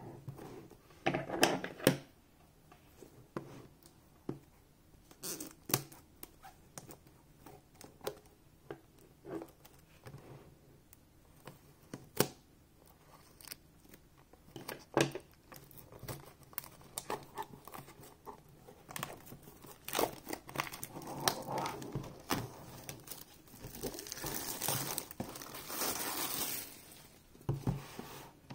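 Plastic shrink-wrap being torn and peeled off a cardboard card box: crinkling and tearing with scattered sharp taps and clicks from handling, turning into a longer stretch of steady crinkling about twenty seconds in.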